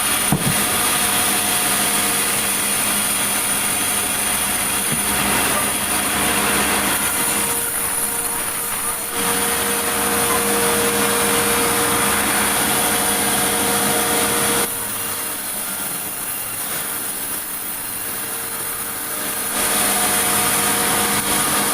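Sawmill saw and machinery running steadily. The sound drops in level for about five seconds past the middle, then comes back up.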